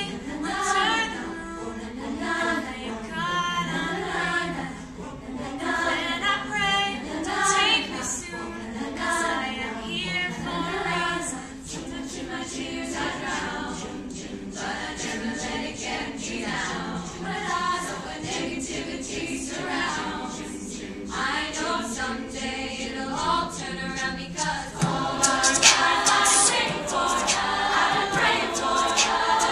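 High school choir singing, with a girl's solo voice over the choir's backing. The singing gets louder about 25 seconds in as fuller choral parts come in.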